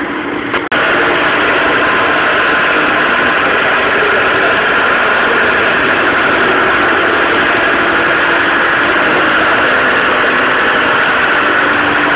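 A vehicle engine idling steadily, starting after a brief cut less than a second in.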